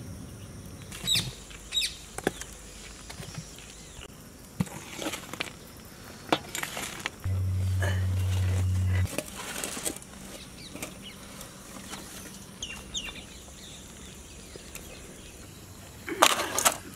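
Scattered clinks and knocks of metal cookware and utensils, with a few short bird chirps. About seven seconds in, a steady low hum lasts about two seconds, and near the end comes a loud clatter.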